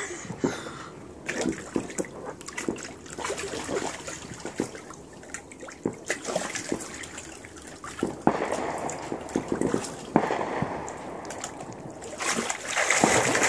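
Water splashing and sloshing in a small inflatable pool as a child moves in it: many small irregular splashes, growing into a louder continuous rush of splashing near the end.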